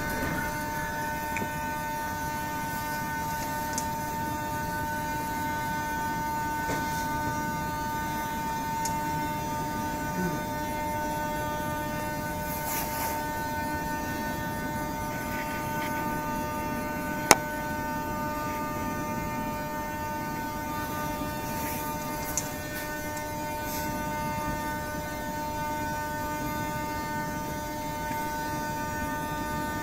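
A stationary metro car's electrical equipment giving a steady hum with a constant high-pitched whine, the train standing stopped in the tunnel. A single sharp click about 17 seconds in.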